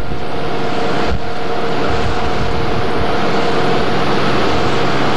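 A boat's motor drones steadily, with two steady tones over a low hum, under a constant rush of wind noise on the microphone. There is a brief knock about a second in.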